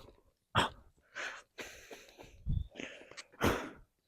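A man panting and gasping hard for breath, about two loud, rough breaths a second: out of breath.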